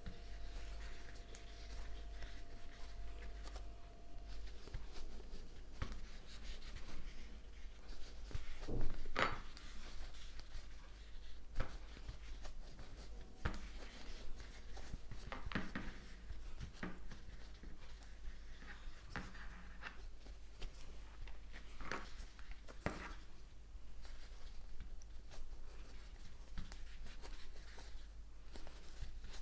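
Crochet hook working thick T-shirt yarn: soft, irregular rubbing and scraping as loops are pulled through the stitches, with occasional light ticks, over a steady low hum.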